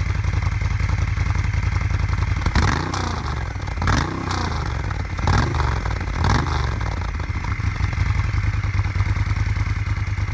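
Moto Guzzi motorcycle engine idling with a steady beat. It is blipped four times in quick succession a few seconds in, the pitch rising and falling with each blip, then it settles back to idle.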